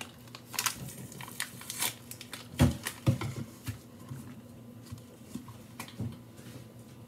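Scattered light clicks and knocks of things being handled, with one louder thump about two and a half seconds in.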